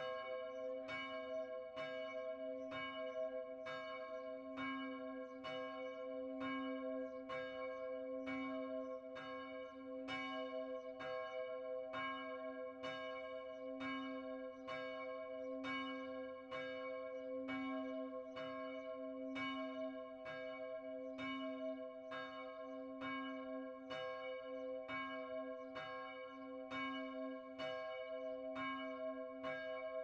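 Church bell rung from close up, its clapper striking at an even pace a little more than once a second, with the bell's low hum and upper tones ringing on between strokes.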